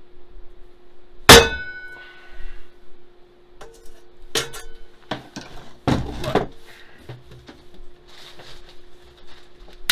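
Metal wok clanging and knocking against metal. One loud clang about a second in rings on briefly, followed by several more knocks and clanks.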